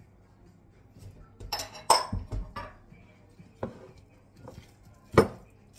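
Glass bowls knocking together: a cluster of clinks and a dull thump as a small glass bowl is emptied and set down on a wooden tabletop beside a large glass mixing bowl. A lighter knock follows, then one sharp clink near the end.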